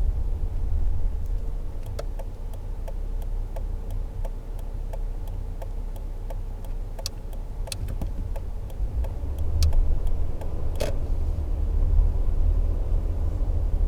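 Toyota Tacoma pickup driving, heard from inside the cab as a steady low rumble that grows louder in the last few seconds. Over it runs an even series of light ticks, a little under two a second, and one sharper click a few seconds before the end.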